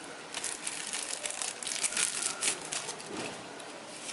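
Packaging crinkling in irregular crackles as the relaxer kit's contents are handled.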